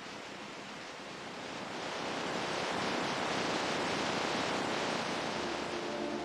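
Ocean surf rushing, swelling louder about two seconds in as a wave breaks and washes in.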